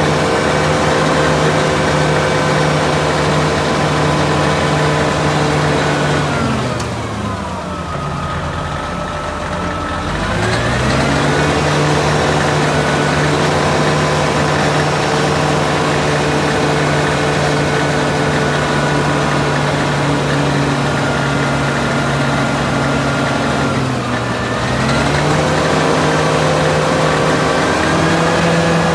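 Caterpillar 637C twin-engine scraper's diesel engine running steadily at raised idle. About seven seconds in the revs drop to a low idle, and they climb back up about four seconds later. A second, shorter drop and rise comes about twenty-four seconds in.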